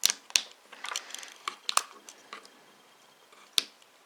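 A quick run of sharp clicks and light taps in the first two seconds, with one more click near the end: small parts of a Samsung Galaxy Xcover 3 being handled as a connector is plugged back into its board.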